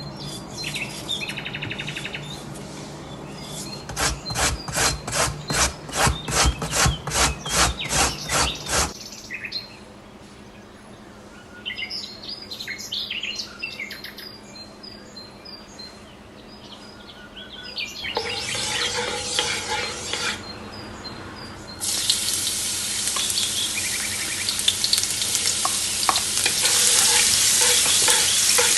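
Food frying in a hot pan: a steady sizzle that starts about two-thirds of the way through and grows loud. Before it there is a run of about ten even strokes at about two a second, and birds chirp faintly in the background twice.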